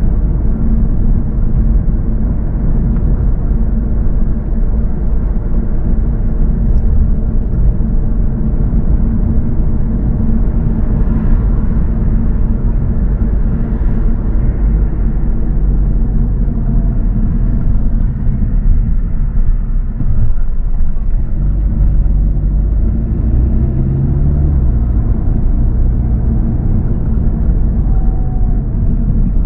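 Steady low rumble of a car driving along a road: tyre, engine and road noise.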